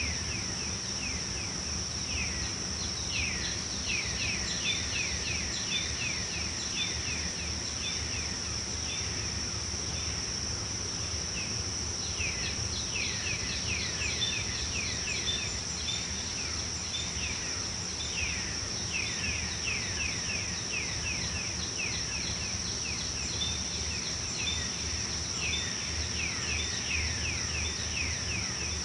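Tropical forest ambience: a steady high-pitched insect drone with birds calling in quick runs of short falling notes throughout, over a low steady background rumble.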